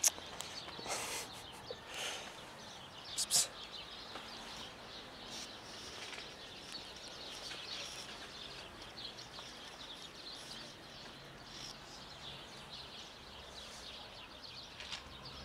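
Outdoor ambience with small birds chirping faintly throughout, and a few brief sharper sounds in the first few seconds.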